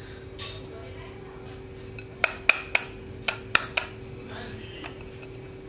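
Glass mixing bowl clinking sharply about six times in under two seconds, starting about two seconds in, as tofu cubes are tossed in flour by hand. A steady hum runs underneath.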